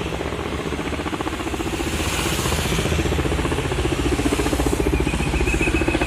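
An engine running with a rapid, even pulse of about ten beats a second, slowly getting louder; a steady high tone joins near the end.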